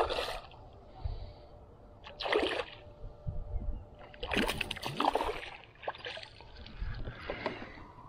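Hooked largemouth bass thrashing at the water surface beside a kayak, splashing in several separate bursts, the loudest about four to five seconds in as it comes out of the water on the line.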